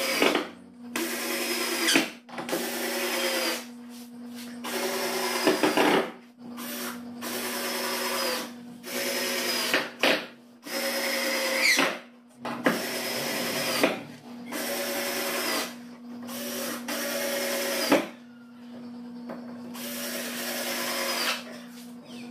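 Electric hand drill run in about a dozen short bursts of a second or so each, driving into wood panels, with its pitch dipping slightly as each one bites. A steady low hum runs underneath.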